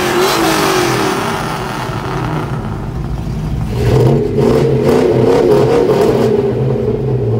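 Pickup truck engines revving: a few rising and falling revs at first, then about four seconds in one engine is held at high revs, loud and steady.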